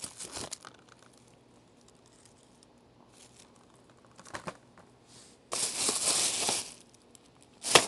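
Thin plastic shopping bag rustling and crinkling as a hand rummages in it for a DVD case. There are a few light knocks early on and a louder stretch of rustling for over a second, about two-thirds of the way in.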